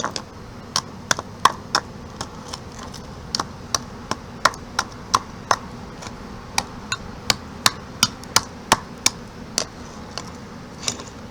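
Irregular sharp knocks and taps, two or three a second with a couple of short pauses, as a block of ice frozen in a bowl is knocked to break it loose.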